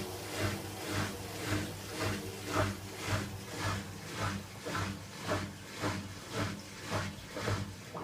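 Empty Hoover WDYN 11746 PG8 washer-dryer running, its drum turning with a low hum and a swish that repeats evenly about twice a second.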